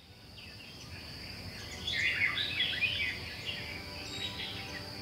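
Birds chirping in quick clusters of calls, busiest in the middle, over a steady high insect-like whine, fading in from quiet at the start.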